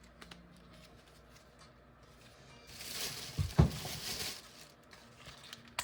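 Handling noise as tools are moved about: quiet at first, then a rustle lasting about two seconds from halfway through, with one sharp thump in the middle of it.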